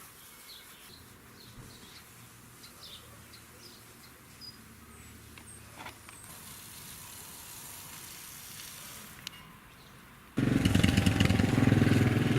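Quiet outdoor ambience with faint high chirps and a low steady hum. About ten seconds in it switches abruptly to a much louder low rumble with a steady drone.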